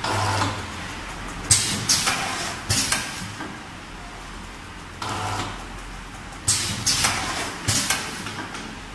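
Kingpak HP200L paste sachet packing machine running through its fill-and-seal cycle, which repeats about every five seconds. Each cycle opens with a short low hum, then three sharp clacks and hisses follow within about a second and a half.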